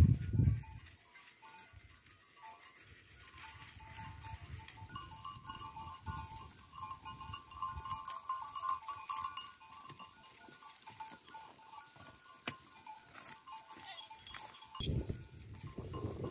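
A herd of goats bleating, many short calls overlapping through the middle. Low rumbling bursts come right at the start and again near the end, and these are the loudest parts.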